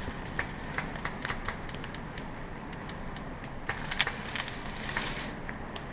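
Footsteps crunching through dry leaves and twigs, with scattered sharp snaps at irregular moments.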